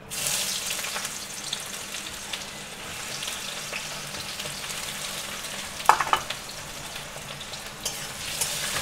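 Fish pieces frying in hot oil in a pan, a steady sizzle that starts suddenly. A couple of sharp clinks about six seconds in are the loudest sounds.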